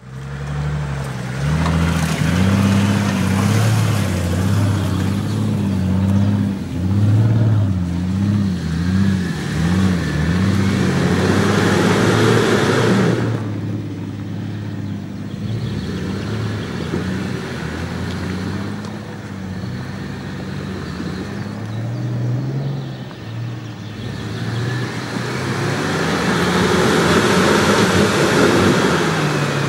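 Toyota Land Cruiser 80-series engine pulling the truck slowly through deep mud, its revs rising and falling repeatedly as it works over the ruts.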